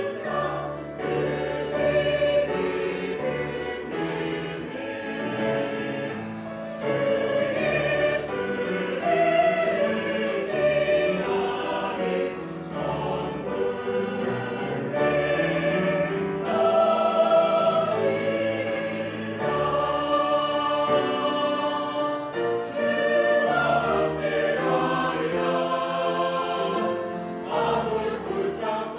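Mixed-voice church choir singing a Korean hymn in parts, sustained chords moving phrase by phrase.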